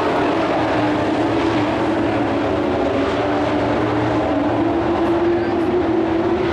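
Engines of pickup-bodied dirt-track race trucks running at speed around the oval, a steady loud drone whose pitch rises slightly near the end.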